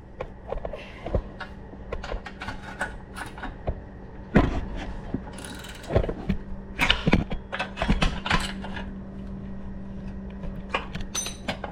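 Hand tools working on a mini bike's metal parts: irregular clicks, clinks and knocks, a few of them louder, over a steady low hum.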